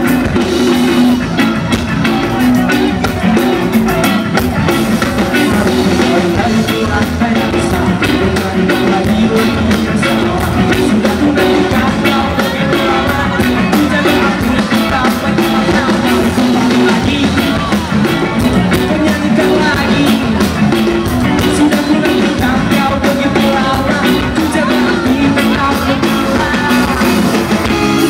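Rock band playing live with electric guitars, a drum kit keeping a steady cymbal beat, and singing.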